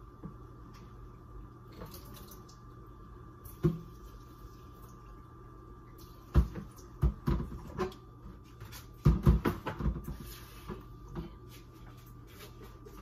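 Scattered knocks and clatter of kitchen things being handled at the counter and sink, including a metal baking pan, over a faint steady hum. One knock comes early, then clusters of clatter about six seconds and about nine seconds in, the second the busiest.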